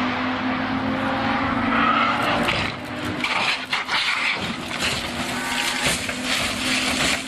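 Race car engine running at steady high revs, then a car crashing and rolling over on the track, with scraping and a string of sharp knocks and impacts.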